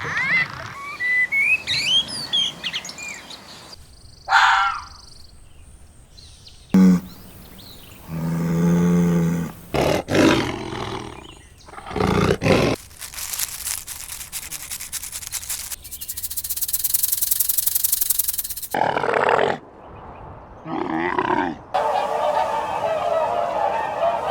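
A string of short, separate animal calls cut one after another, including big-cat roars and bird chirps.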